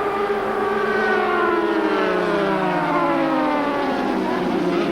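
1000cc four-cylinder racing superbikes at high revs, their engine note sliding slowly and steadily down in pitch over several seconds.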